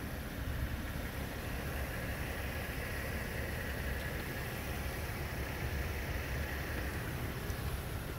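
Wind rumbling on a phone's microphone outdoors: a steady low buffeting over a faint hiss that swells slightly in the middle.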